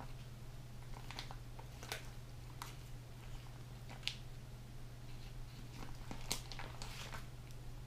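Faint crinkling and rustling of a plastic deli-meat package as sliced turkey is picked out with tongs, a few soft ticks scattered through, over a steady low hum.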